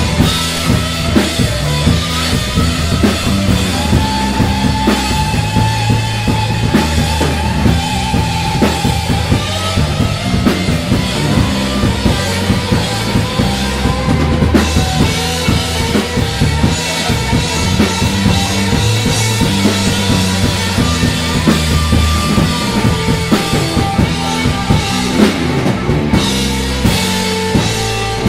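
Live rock band playing an instrumental passage: a drum kit keeping a steady beat with bass drum and snare, under bass and guitar.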